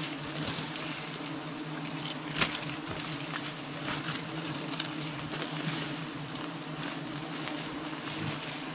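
A swarm of giant honeybees buzzing around their nest as a steady, droning hum, with one sharp click about two and a half seconds in.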